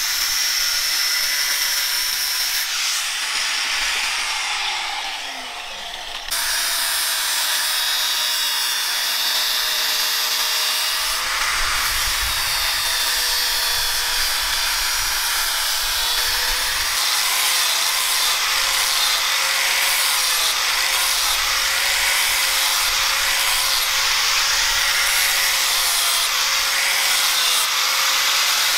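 Handheld angle grinder running steadily with its disc against a steel knife blade, a constant motor whine under the grinding hiss. The sound drops off for a couple of seconds and comes back abruptly about six seconds in.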